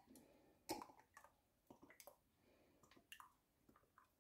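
Near silence, with a few faint short glugs and ticks as cooking oil pours from a plastic bottle into a plastic cup.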